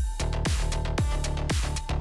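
Electronic dance music with a steady kick drum beat, about two beats a second.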